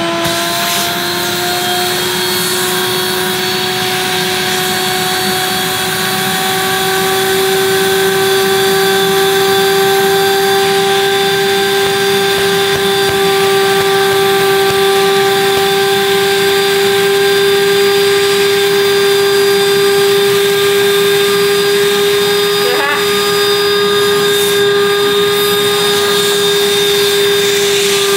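Canister vacuum cleaner running with its hose nozzle pressed on the valve of a vacuum storage bag, sucking the air out of the bag of bedding. A steady motor whine that rises slightly in pitch in the first couple of seconds, then holds.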